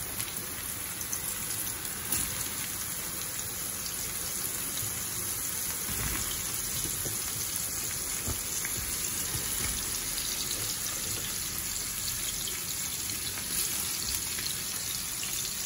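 Mushroom pieces frying in hot oil in a pan: a steady sizzle with scattered small crackles.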